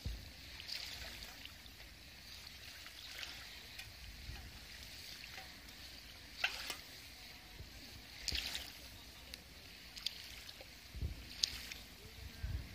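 Small waves lapping and splashing on the shore, a short splash every two seconds or so over a steady hiss. Low wind rumbles on the microphone near the end.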